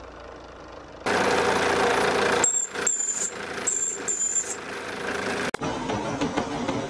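A loud hiss of steam starts suddenly about a second in, followed by four short high-pitched squeals. After an abrupt cut, a model train runs on its track with rapid clicking.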